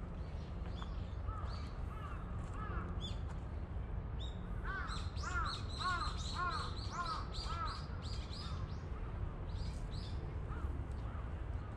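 A crow cawing: a quick run of six or seven caws from about five to eight seconds in, with fainter calls before it, over a steady low rumble.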